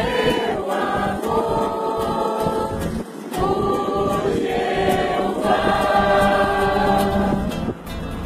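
A group of people singing a Portuguese hymn together, the voices holding long notes.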